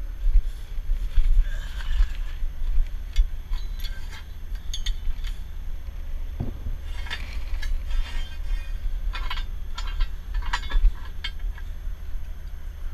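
Scattered metal clinks and clicks from a heavy wrecker's underlift fork being fitted under a dump truck's rear end, over a steady low rumble.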